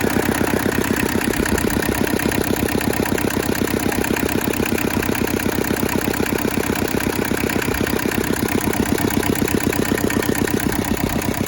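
Hinomoto E150D tractor's Toyosha diesel engine idling steadily with an even, rapid chugging beat.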